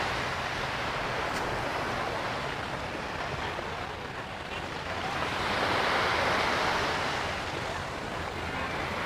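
Small waves breaking and washing up the sand, a steady rush that swells to a louder surge about halfway through and then eases back.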